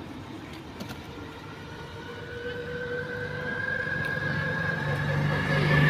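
A motor vehicle's engine running, a steady hum with a faint whine that rises slightly in pitch and grows steadily louder, with a deeper drone joining about four seconds in.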